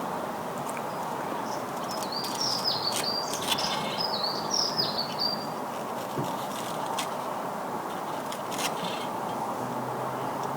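A bird chirps a short run of high, rising-and-falling notes a couple of seconds in. Underneath is a steady background hiss, with scattered faint clicks.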